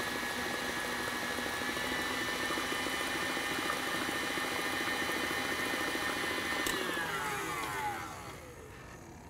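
Electric stand mixer running steadily as it beats cake batter, then switched off about seven seconds in, its motor whine falling in pitch as it winds down.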